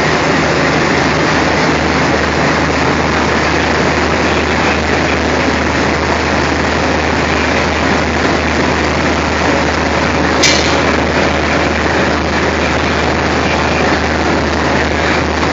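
Diesel locomotive engine idling at close range, a loud steady low rumble with a dense mechanical hum over it. A single brief sharp click about ten seconds in.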